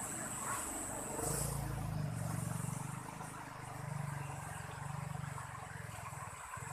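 A low motor hum swells about a second in and fades out after a few seconds, over the steady rush of a stream.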